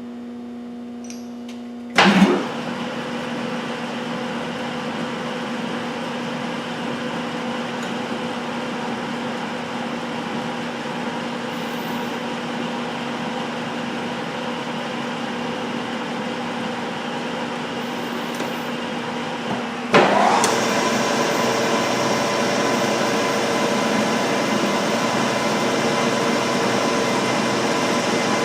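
Metal lathe running. It starts suddenly about two seconds in with a steady mechanical hum, then steps up louder just after twenty seconds as its pitch sweeps up to a higher steady whine.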